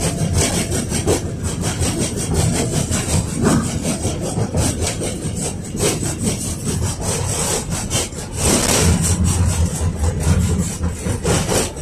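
KTM-5 (71-605A) tram running, heard from inside the passenger car: a steady low rumble of wheels on rails with constant rough rattling and many short clatters from the car body.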